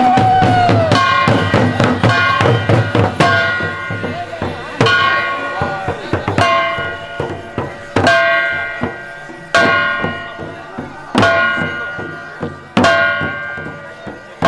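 Hand-held metal gong struck in a slow, even beat, about once every second and a half, each stroke ringing out, with drums beaten along with it.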